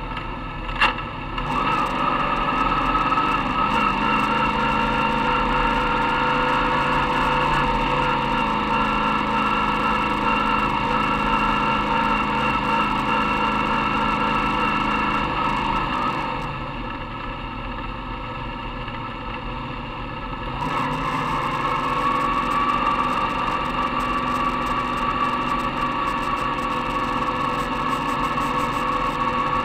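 Modified race car's engine heard from inside the cockpit, running hard at a fairly steady speed, with a single sharp knock about a second in. The engine eases off for about four seconds past the middle, then pulls strongly again.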